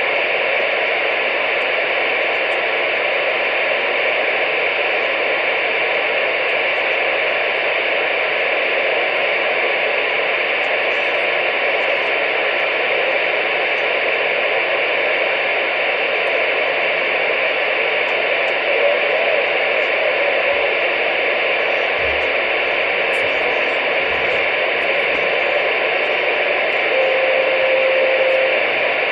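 CB radio receiver hissing with steady static, no transmission coming through. A short steady whistle tone sounds near the end.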